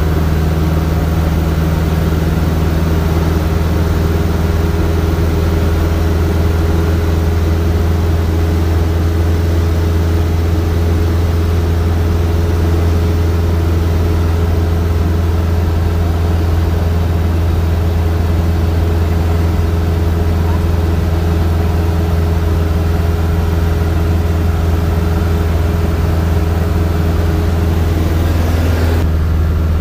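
Robin DR400 light aircraft's piston engine and propeller running steadily in cruise flight, heard from inside the cockpit as a constant low drone. The tone changes abruptly near the end.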